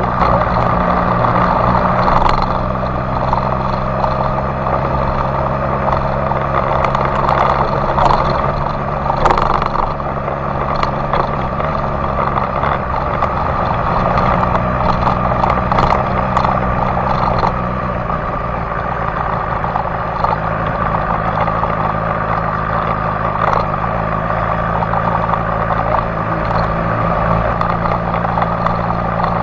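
BMW S1000XR's inline four-cylinder engine running at a steady, moderate pace on a dirt track, its note shifting lower about two-thirds of the way through. Scattered clicks and knocks sound over it throughout.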